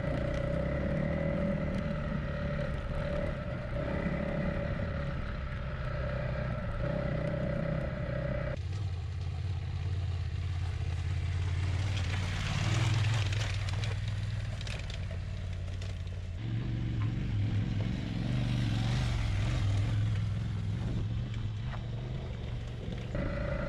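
Adventure motorcycle engines running on a dirt track: first a steady engine drone with a constant whine, then, after a cut, a motorcycle coming up close, its engine and the rush of tyres on loose gravel and dirt rising and falling twice.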